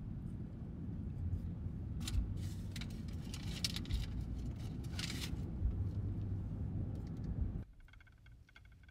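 Steady low road and engine rumble inside a moving pickup truck's cab, with a paper food bag crinkling several times. Near the end the rumble cuts off abruptly to a much quieter background with faint clicks.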